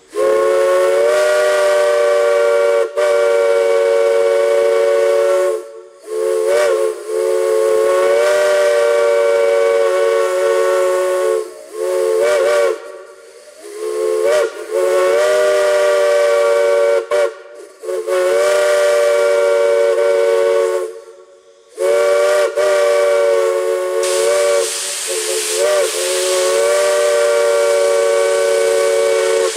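Multi-chime steam whistle blown in a series of long blasts of a few seconds each, sounding a chord of several tones. Short breaks and brief toots with wavering pitch come between the blasts as the valve is eased open and shut, and a steady steam hiss runs underneath.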